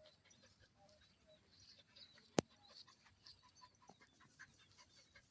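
Faint dog panting with scattered small ticks, and one sharp click about two and a half seconds in.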